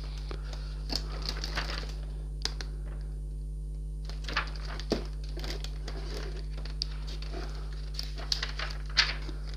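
Pages of a paper instruction booklet being turned and handled: scattered soft rustles and light taps, with a lull of about two seconds early on, over a steady low hum.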